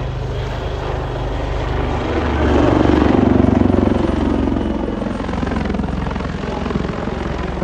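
AgustaWestland AW159 Wildcat helicopter flying overhead, its rotor beating rapidly over the turbine noise. The sound swells louder about two and a half to four and a half seconds in as it banks toward the listener, then eases.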